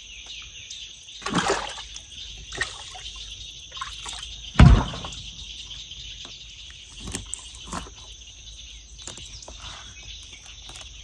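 Water sloshing in a cooler as a crappie is lifted out, then a single loud thump about halfway through as the hard plastic cooler lid shuts, with a few small knocks of the fish and knife on the lid after it. A steady high buzz runs behind.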